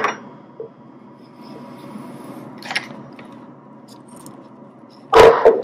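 Quiet handling of a three-strand nylon line and a soldering gun used as a hot line cutter, with a faint tap about two and a half seconds in and a sudden loud sound about five seconds in.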